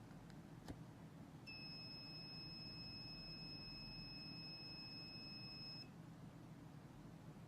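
Arduino fire alarm's buzzer sounding one faint, steady, high-pitched tone for about four seconds, the alarm set off by the flame sensor detecting a flame.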